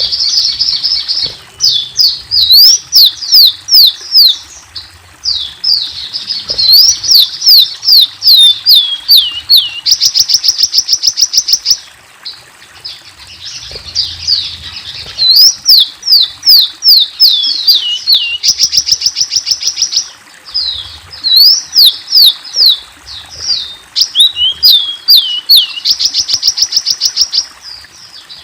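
Sunbird (sold in Indonesia as 'kolibri') singing loudly in phrases of rapid, high, thin downward-sweeping notes mixed with fast buzzy trills, each phrase a few seconds long with brief pauses between.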